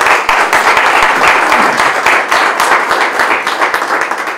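An audience applauding, a dense patter of many hands clapping that tapers off near the end.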